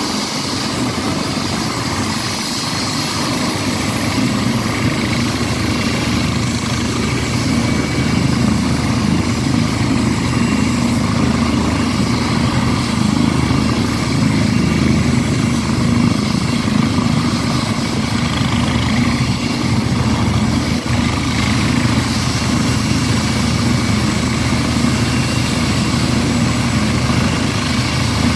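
Eurocopter EC135 air ambulance helicopter running on its helipad with its twin turbine engines and rotor turning. It makes a steady, loud whine and rotor drone, building slightly over the first few seconds.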